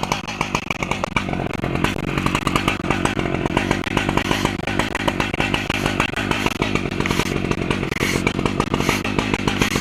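Stihl MS880 two-stroke chainsaw running steadily under load, ripping lengthwise through a large oak log on an Alaskan chainsaw mill.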